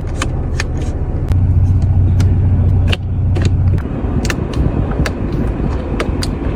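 Toyota Land Cruiser Prado engine running with a steady low rumble that grows louder between about one and three seconds in, then eases back. Scattered short sharp clicks sound over it throughout.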